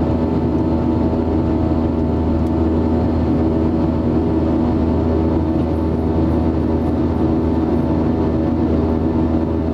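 Airbus A320-232's IAE V2500 turbofan engines heard from inside the cabin over the wing while airborne after takeoff: a loud, steady drone with several humming tones and a deep hum underneath.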